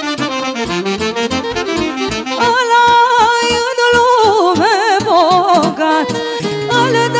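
A live Romanian folk band plays an instrumental break with no lyrics. A lead melody runs in quick notes over a steady accompaniment. About two and a half seconds in, it gets louder and turns to held notes with wide vibrato and wavering ornaments.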